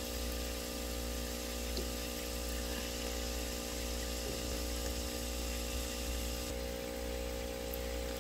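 Aquarium pump running, a steady hum with a low drone and a faint water hiss.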